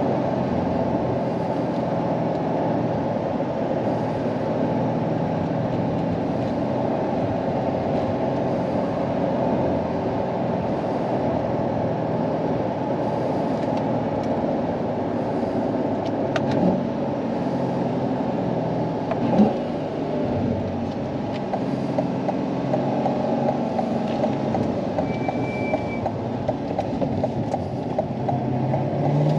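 Modified C8 Corvette's 6.2-litre V8, heard from inside the cabin, droning steadily at cruising speed along with road noise. Near the end the engine note starts to rise as the car begins to accelerate.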